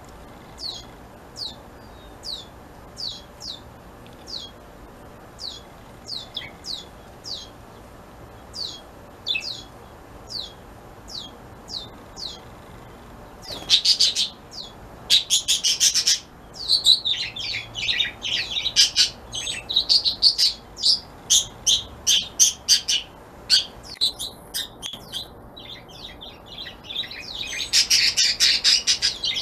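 Fledgling goldfinch calling. At first it gives single short, high, falling chirps about every second. From about halfway it switches to loud, rapid runs of chirps.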